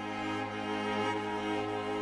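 Background music of bowed strings, with cello and violin holding slow sustained chords over a low bass note.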